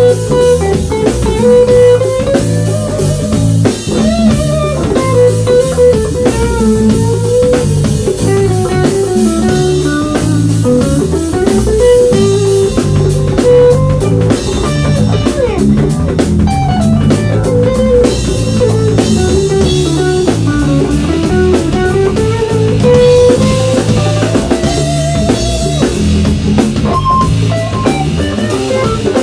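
Live blues-rock band playing an instrumental passage: an electric guitar plays a lead line with bending, sliding notes over bass guitar and a drum kit.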